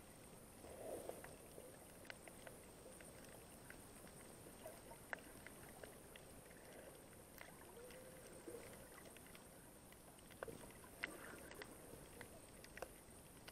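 Faint, muffled underwater sound heard through an action camera's waterproof housing: soft swishes of water movement, about a second in and again near the end, with scattered small clicks throughout.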